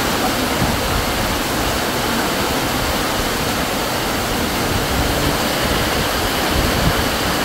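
Heavy rain pouring down steadily: a loud, even hiss of water with no let-up.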